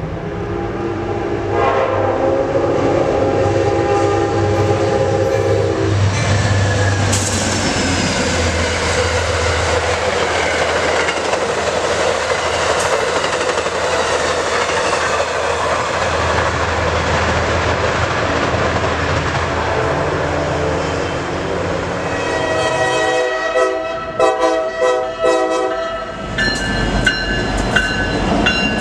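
A diesel locomotive horn sounds a chord for several seconds, then a passenger train rushes past with steady rolling wheel noise and a brief high squeal. Near the end a second locomotive horn sounds in choppy, uneven blasts.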